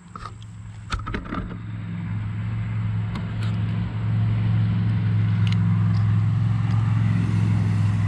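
A motor running nearby: a steady low hum that grows louder over the first few seconds and then holds. A few sharp clicks sound about a second in.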